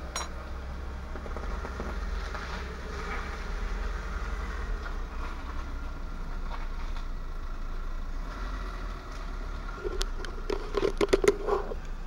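Water heating toward the boil in a steel cup on a Notkocher 71 emergency stove, a faint hiss over a steady low rumble. About ten seconds in comes a quick cluster of sharp knocks and clicks.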